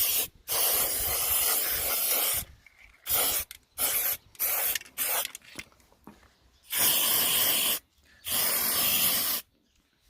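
Aerosol spray-paint can spraying white paint in bursts of hiss: one long burst of about two seconds, then a run of short quick bursts, then two bursts of about a second each near the end.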